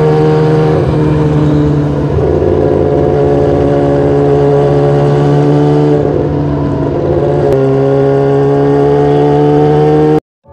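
Motorcycle engine running loud through an aftermarket exhaust (knalpot), held at fairly steady revs with a few brief dips in pitch. It cuts off abruptly near the end.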